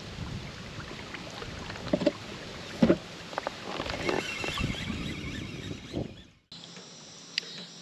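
A plastic kayak moving on a river: water rushing against the hull with wind on the microphone, and a few short knocks on the hull. About six and a half seconds in it cuts off suddenly to a quieter steady background.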